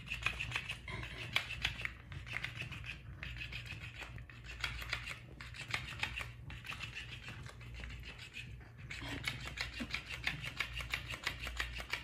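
Flopping fish cat toy wriggling and slapping against a hardwood floor while a cat paws and bites at it: a fast, scratchy rattle of clicks that breaks off briefly several times.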